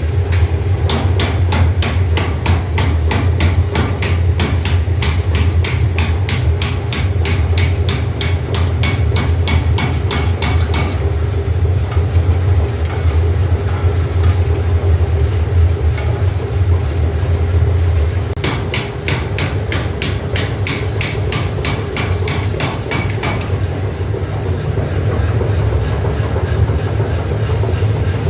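Forging hammer striking a hot steel rod in rapid, even blows, about four or five a second, in two runs separated by a pause of several seconds, over a steady low machine hum.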